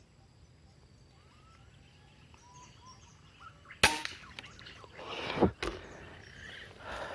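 A single sharp air-rifle shot about four seconds in, with more noisy swells and a second sharp click a second or two later. Faint bird chirps come before the shot.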